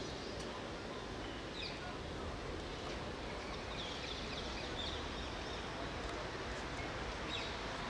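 Steady outdoor background rush with a few short bird chirps scattered through, a small cluster of them about three to four seconds in.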